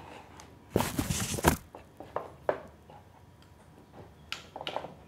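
Handling noise from the audio interface, microphone and cable being moved about: a loud rustling scrape about a second in, then a few light knocks.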